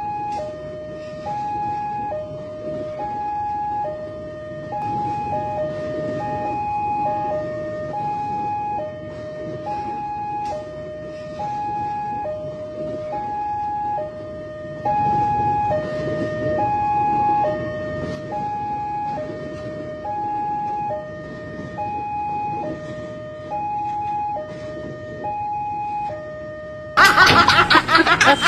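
Level-crossing warning alarm sounding a steady two-tone high-low pattern, about one cycle a second, over the rumble of a passing electric commuter train. Near the end it cuts off and loud laughter bursts in.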